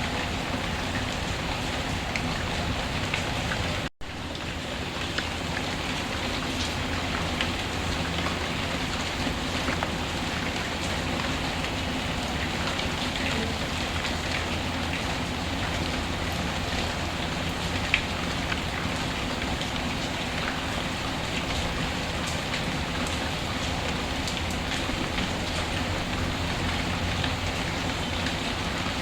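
Steady rainfall mixed with the scattered crackle and pop of a wood fire. The sound cuts out for an instant about four seconds in, then carries on as before.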